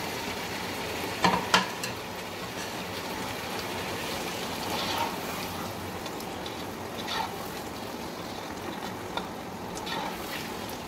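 Masala sizzling steadily in a pot as fried taro slices are stirred through it. There are two sharp clicks about a second in, and the spoon scrapes against the pot now and then.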